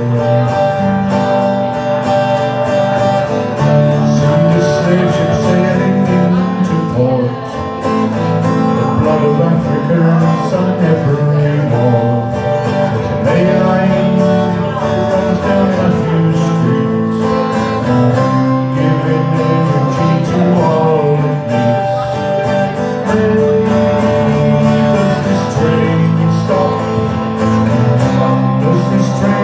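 Live Irish folk song: strummed acoustic guitar accompanying held melody notes, with singing.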